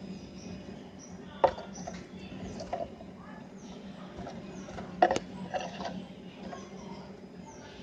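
Brown-throated sunbird (kolibri kelapa) giving short, high, downward-sweeping chirps and twitters, with two sharp knocks, one about a second and a half in and a louder one about five seconds in, over a faint steady hum.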